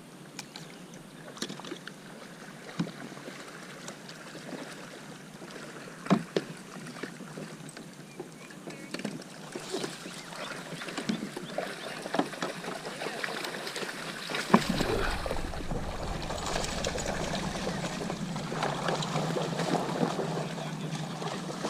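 Water splashing and lapping against a small plastic fishing kayak, with scattered small knocks on the hull. About two-thirds of the way through, a low wind rumble on the microphone comes in and the sound gets louder.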